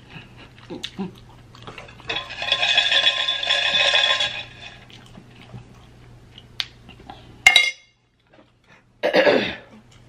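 Eating sounds from a spicy-food challenge: a hissing, breathy mouth sound lasting about two seconds, then a sharp clink as a metal fork is set down on a plate. Near the end comes a short vocal sound that falls in pitch.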